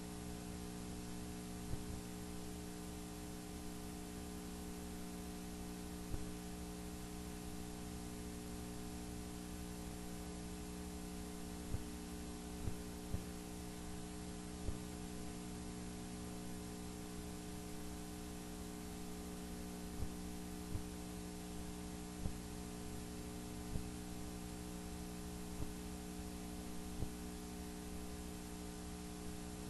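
Steady electrical mains hum picked up by a sewer inspection camera system's recording, with a dozen or so short clicks scattered irregularly through it.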